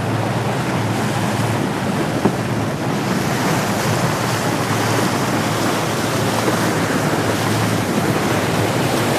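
Wind buffeting the microphone and sea water rushing past a small open boat under way, over the low steady hum of the boat's motor.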